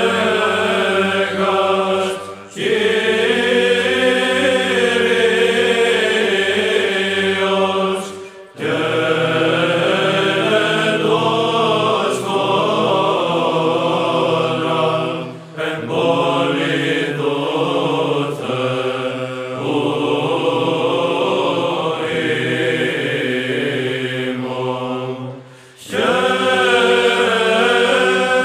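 Choir chanting slow, long-held phrases in the manner of church chant, with four brief pauses between phrases.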